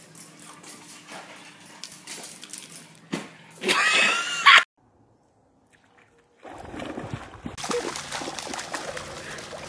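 A small dog's short, high yelp, rising and falling for about a second, over faint room noise; it cuts off suddenly, and after a silent gap water sloshes and splashes around a dog on a wet dock.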